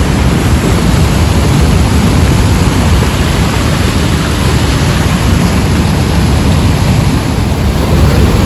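Loud, steady roar of Niagara Falls' falling water, an even rushing noise with a heavy low rumble.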